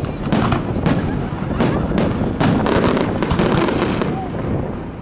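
Fireworks display: aerial shells bursting one after another, a quick succession of sharp bangs and crackles over a continuous low rumble.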